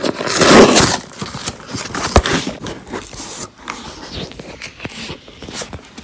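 Cardboard parcel being opened by hand: a loud ripping and scraping of cardboard and packaging in the first second, then lighter rustling of paper and cardboard with scattered clicks and a sharp knock, thinning out towards the end.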